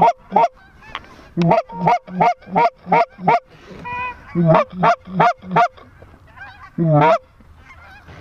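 Hand-blown goose calls imitating lesser Canada geese: quick, loud runs of clucks and honks, about three a second, broken by a single drawn-out note near the middle and one long, loud honk about seven seconds in. Fainter honking follows near the end.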